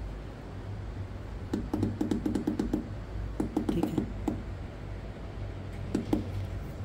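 A rapid run of small clicks, in two bursts of about a second each and a brief pair near the end, over a low steady hum.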